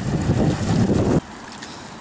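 Wind buffeting the microphone in heavy, uneven gusts, cutting off abruptly a little over a second in and leaving a quieter steady rush.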